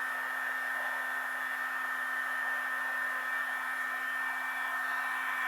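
Heat gun running steadily, its fan blowing with a constant hum and a thin whine over the airflow.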